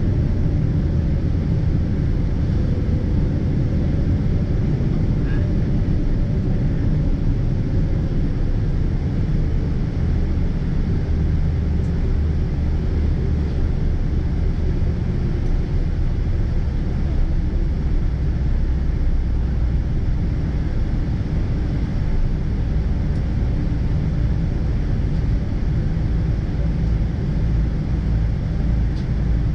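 Steady low rumble of a Boeing 777-200ER heard from inside the cabin: the Rolls-Royce Trent 892 engines running with airframe noise, even in level throughout.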